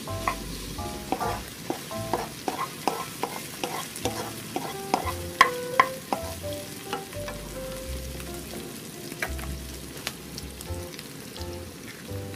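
Diced vegetables sizzling in oil in a frying pan while a wooden spatula stirs and pushes them around, with frequent sharp clicks and scrapes of the spatula against the pan, loudest about five to six seconds in.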